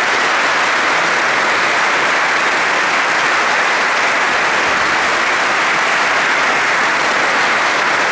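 A large seated audience applauding, a dense, even clapping that holds steady.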